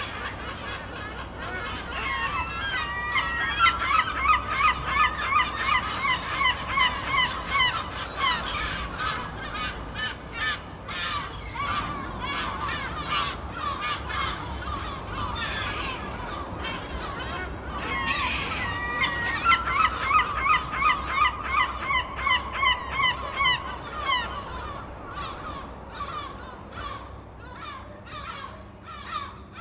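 Seagulls squawking, several calling over each other. Twice a gull gives a long run of fast repeated calls, about two a second.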